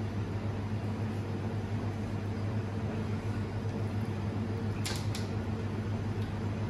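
Steady low hum of commercial kitchen machinery, with two short clicks about five seconds in.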